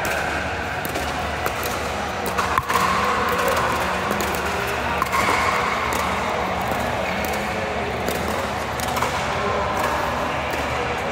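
Pickleball play: sharp knocks of paddles striking the plastic ball and the ball bouncing on the court, scattered over a steady background din, the loudest hit about two and a half seconds in.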